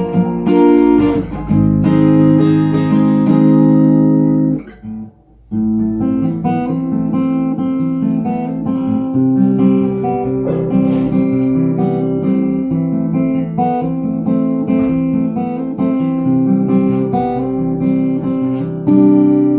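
Tagima Jumbo Maple acoustic guitar played solo: full strummed chords, a brief break about five seconds in, then a passage of individually picked notes and chords, ending on a loud strummed chord.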